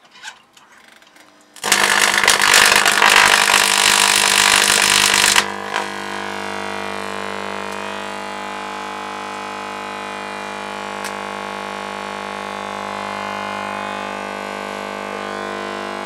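A 2450 MHz, 1900 W magnetron microwave plasma rig switching on. About two seconds in comes a loud, noisy rush lasting about four seconds. It then settles into a steady buzzing hum with many overtones while the atmospheric-pressure plasmoid burns inside the metal cylinder.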